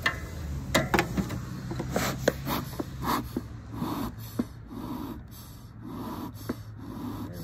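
Beekeeper's stainless-steel bee smoker being handled with a few metallic clicks and knocks, then its bellows pumped in regular puffs of air, about one to two a second, to get the lit fuel smoking.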